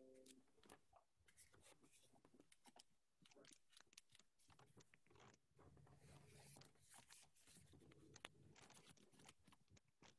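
Near silence: quiet room tone with faint scattered small clicks and rustling.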